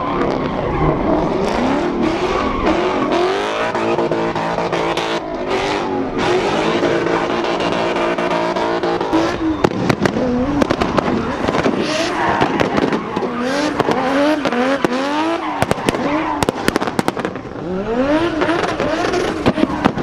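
Turbocharged drift car engine revving up and down hard, its pitch climbing and dropping again and again, with tyres squealing. From about halfway, rapid sharp pops and bangs join in, typical of an antilag system or exhaust backfire on lift-off.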